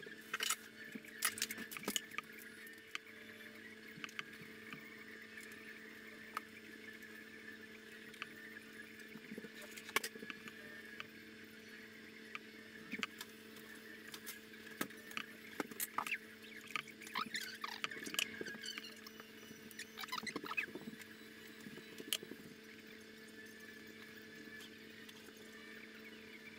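Pyrography pen tip scratching and ticking in short, irregular strokes as it is drawn across pallet-wood boards, burning in a line, over a steady low hum.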